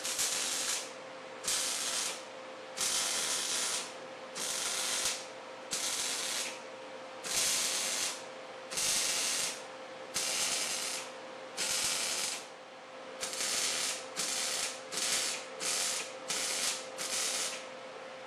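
MIG welder striking its arc again and again on a sheet-metal seam, stitch-welding it: about fifteen short bursts of arc noise, each under a second, coming quicker in the last few seconds. A steady hum runs underneath.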